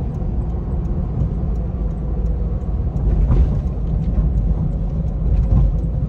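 Steady low rumble of a supercharged Toyota Tundra 5.7-litre V8 and its road noise, heard from inside the cabin of a 4Runner while driving. It swells a little partway through.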